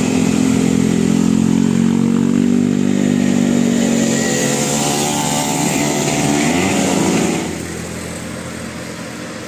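Bus engine running loud and revving up, its pitch rising gently, then falling away sharply about three-quarters of the way through.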